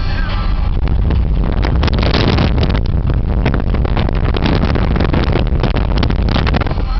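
Jeep driving along beach sand: a steady engine and tyre rumble, with wind buffeting the microphone through the open side window.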